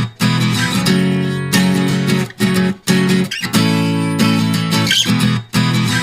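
Background music: strummed acoustic guitar chords in a steady rhythm, with short breaks between strums.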